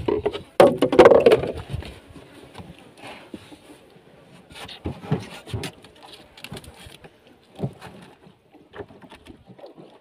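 Knocks and clatter of things against a small wooden boat, loudest and most crowded in the first two seconds, then scattered, quieter knocks.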